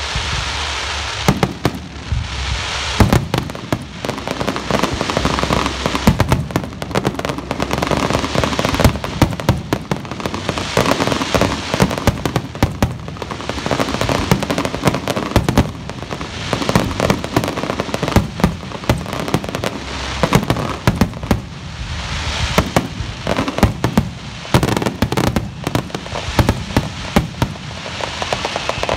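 Aerial fireworks shells bursting in a rapid barrage, many sharp bangs overlapping with hardly a pause between them.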